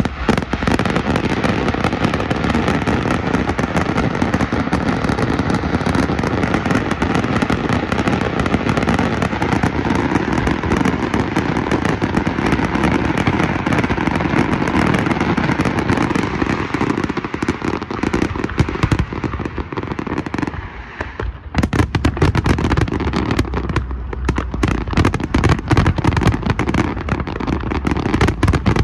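Fireworks display: a dense, continuous barrage of aerial shell bursts and crackling. After a brief lull about two-thirds of the way through, a rapid run of many sharp bangs follows.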